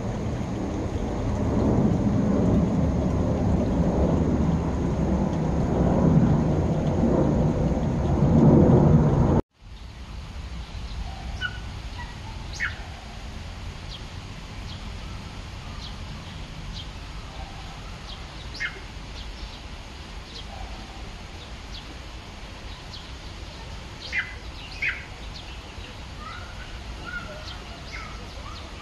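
A loud low rumbling noise, like wind or distant thunder, cuts off abruptly about a third of the way in. After it comes quiet outdoor ambience with short bird chirps now and then.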